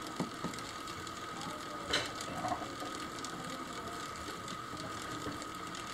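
3D-printed wind-up fan driven by a tape-measure spring, its plastic gear train running with a steady high whine, and a single click about two seconds in.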